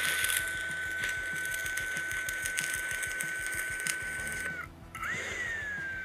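Stick-electrode arc welder, set to about 160 amps, arcing against a thin steel plate. The arc crackles and hisses with a steady high whine. Near the end it breaks off for about half a second, then strikes again with a short rise and fall in pitch.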